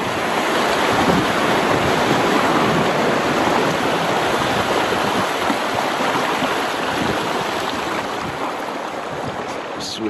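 Shallow river water rushing over stones in riffles around a bamboo raft, a steady rush that slowly fades toward the end as the raft moves into calmer water.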